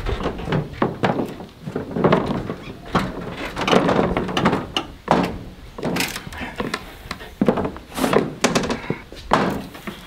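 Manual pallet jack, heavily loaded with a bulk bag of feed, being rolled over plywood sheets and metal plates laid across the lip of a trailer: a series of irregular thunks and knocks as the small wheels bump and the boards take the weight.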